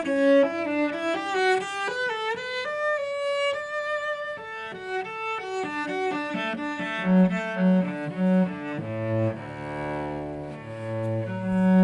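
Solo cello played with the bow: a melodic line of quick notes in the middle register with a short slide about two seconds in, moving from about seven seconds on to lower, longer notes.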